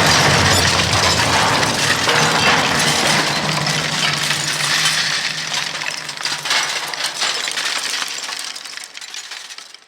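A sound effect of many small clinking, glassy impacts, like debris or shards clattering down, over a low hum, dying away over about nine seconds.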